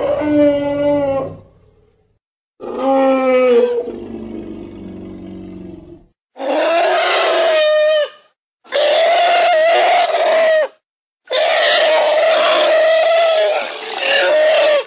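Reconstructed woolly mammoth calls, elephant-like: five calls in a row, each about one and a half to three and a half seconds long with short silent gaps. The first calls are clearly pitched, and the later ones are harsher and noisier.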